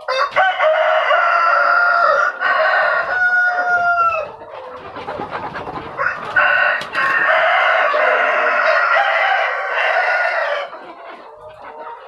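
KUB chickens calling loudly in the coop: two long, drawn-out calls of about four seconds each, the first ending in a falling note, the second starting about six seconds in.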